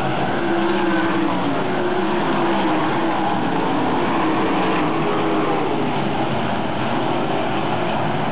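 A pack of winged sprint cars racing on a dirt oval, their V8 engines running hard together in a loud, steady drone whose pitch wavers up and down as the cars pass.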